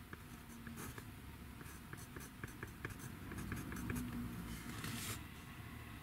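Pencil writing on paper in a workbook: a run of short scratchy strokes and taps, with one longer scratch about five seconds in.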